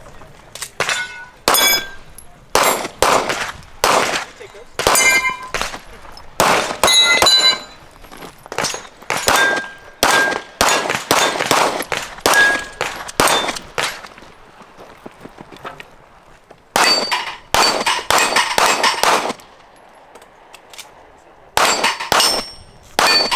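A rapid string of gunshots, many followed by the ringing ping of a hit steel target. The firing breaks off twice for about two seconds, once past the middle and again a few seconds before the end.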